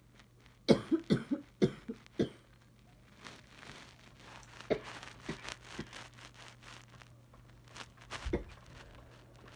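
A woman's coughing fit: about five quick, loud coughs in a row in the first couple of seconds, then a few lighter single coughs spaced out. It is a cough she suspects comes from allergies.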